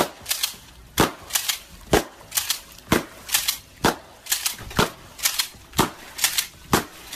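A steady run of sharp cracks, about two a second, many falling in a loud-then-softer pair.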